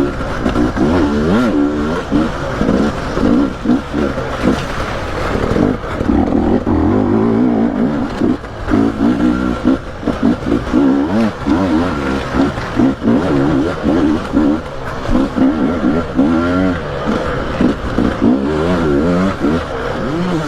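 Dirt bike engine revving, its pitch rising and falling over and over.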